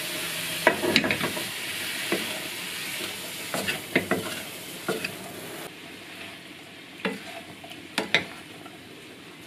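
Shiitake mushrooms frying in soy sauce in a non-stick pan, sizzling steadily while a wooden spatula stirs them with about eight short scrapes against the pan. The sizzle drops noticeably quieter a little past halfway.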